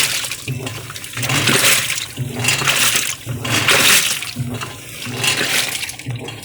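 Panasonic top-load automatic washing machine in its wash cycle: the pulsator turns back and forth, sloshing the water in repeated surges over a low motor hum.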